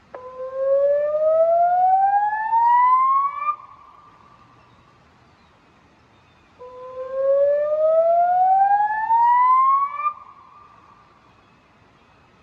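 River warning siren sounding through a Bosch PA system's LBC-3406 horn loudspeakers: a rising electronic sweep that climbs steadily for about three and a half seconds and then cuts off abruptly, with a short echo after it, heard twice about three seconds apart. It is a warning activation, signalling rising water on the river.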